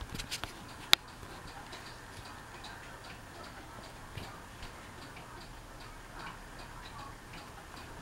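60-inch Hampton Bay Miramar ceiling fan running on low, faint, with light ticking several times a second over a soft hum. One sharp click sounds about a second in.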